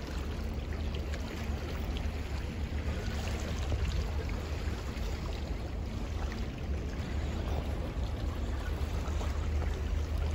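Steady wind rumble on the microphone, with water washing against the jetty rocks.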